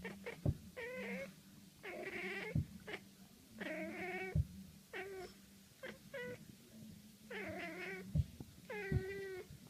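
A domestic cat meowing and yowling over and over, about seven drawn-out calls that bend in pitch, with several short sharp knocks between them.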